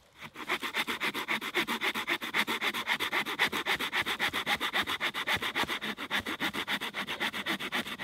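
Folding Laplander saw cutting through a fresh fallen Scots pine pole in quick, even back-and-forth strokes, several a second, starting a moment in. The blade is blunt.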